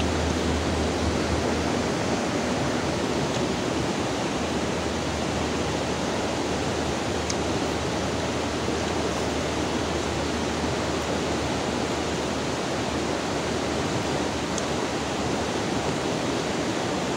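River water flowing and babbling over its bed, a steady, even rush with no change.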